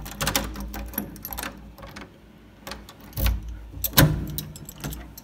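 A key and lock clicking and rattling as a room door is unlocked and pushed open: a run of quick clicks, then a few knocks, the loudest about four seconds in, over a low rumble of handling.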